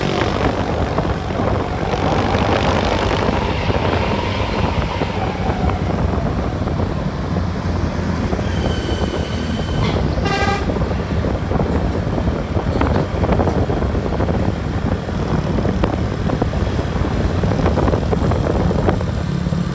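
Bus engine and road noise running steadily, with the bus's multi-tone telolet horn sounding twice: a held toot about eight and a half seconds in and a shorter blast about a second later.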